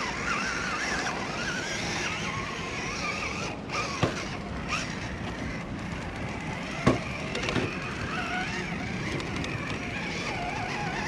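Vanquish VS4-10 Phoenix 1/10-scale RC rock crawler on rock: its Tekin Roc412 motor and geared drivetrain whine, the pitch wavering as the throttle changes. Twice, about four and seven seconds in, there is a sharp knock as the truck comes down on the rock.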